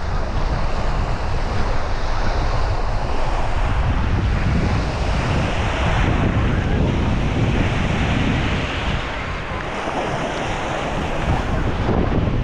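Wind buffeting the microphone over the steady wash of small sea waves on the shore, dipping a little in level about ten seconds in.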